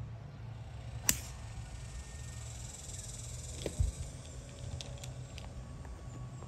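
A golf club striking a teed ball off the tee: one sharp crack about a second in, over a steady high hiss.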